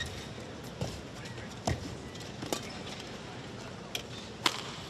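Badminton rally: the feather shuttlecock is struck back and forth with racquets, giving a string of sharp cracks a second or less apart, with footsteps on the court between them.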